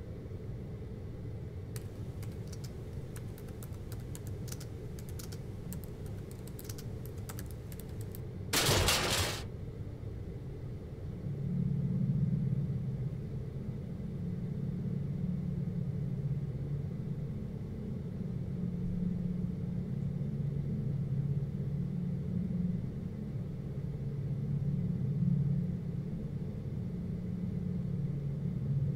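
Quick tapping on a laptop keyboard, then a sudden loud noisy burst under a second long about nine seconds in, followed by a steady low rumble.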